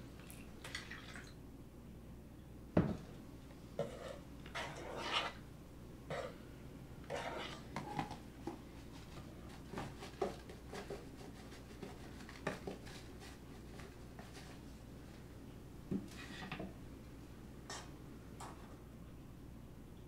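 Kitchen clatter from cooking: a string of short knocks, clinks and rustles from a pan, utensils and packaging, as dry food is tipped from a box into the pan. The sharpest knock comes about three seconds in.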